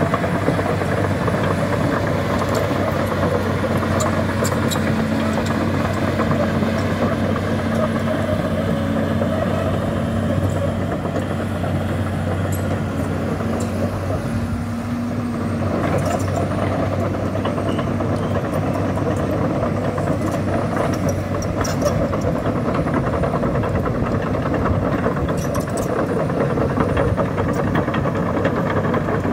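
Hydraulic excavator's diesel engine running steadily while working, with a higher steady hum through the first half and a few faint clicks.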